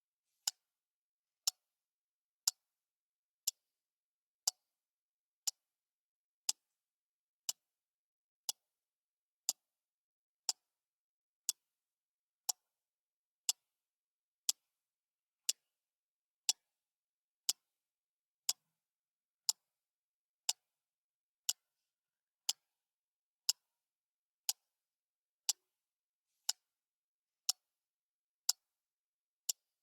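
Clock ticking steadily, one sharp tick each second, with silence between the ticks.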